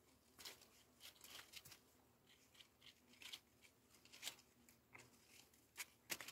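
Faint, irregular dry crackling and rustling: a dozen or so short crackles at uneven intervals, with a cluster of the loudest near the end.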